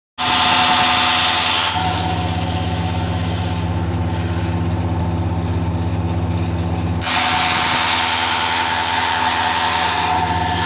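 Electric banana-fibre extraction machine running: its motor hums steadily while the spinning scraper roller rasps a banana stem strip into fibre. The rasping is loud at the start, eases after about two seconds, and returns about seven seconds in.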